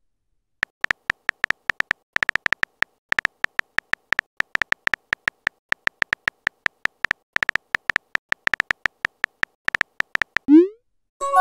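Phone keyboard key-tap sound effects as a text message is typed: a rapid, uneven string of light clicks, several per second. Near the end a short rising tone plays as the message is sent.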